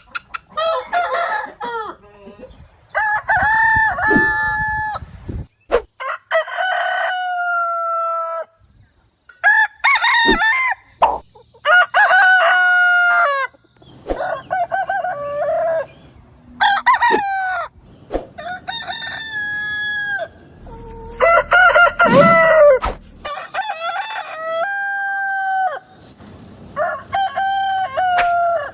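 Roosters crowing one after another, about ten separate crows, each a pitched call ending on a held note that falls slightly, with abrupt breaks between them.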